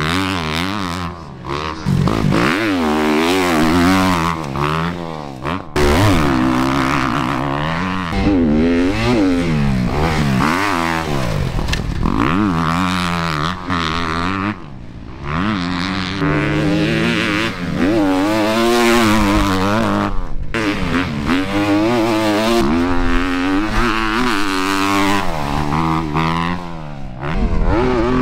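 Dirt bike engine revving hard, the pitch climbing and falling over and over with throttle and gear changes, with a few brief dips where it drops off.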